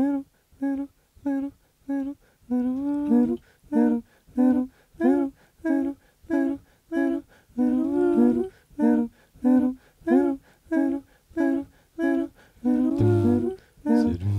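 Live vocal looping: a short hummed note is looped to repeat evenly about one and a half times a second, with wordless sung phrases layered over it. A low hummed bass line comes in near the end.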